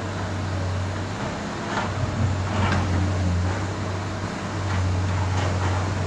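Komatsu PC200 hydraulic excavator's diesel engine running with a steady low hum, with a few short knocks from the machine.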